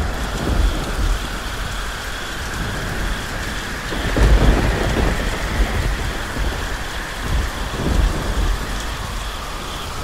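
Thunderstorm sound effect: steady heavy rain with low rolls of thunder, the biggest rumble about four to five seconds in and another near eight seconds.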